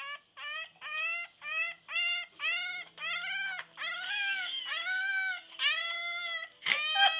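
English Bulldog puppy howling in a string of high-pitched cries, short ones about two a second, each rising in pitch, drawing out into longer howls partway through. A sharp knock sounds near the end.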